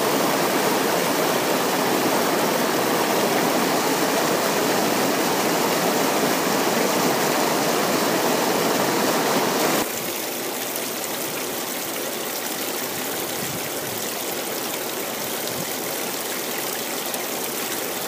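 Water rushing over river rapids at a weir, a loud steady rush. About ten seconds in it cuts suddenly to a quieter, thinner trickle of a small stream running between mossy stones.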